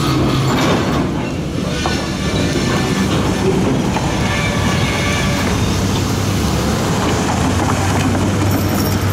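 Loaded covered hopper cars rolling slowly over the rails, wheels clicking over the rail joints, with a faint high wheel squeal.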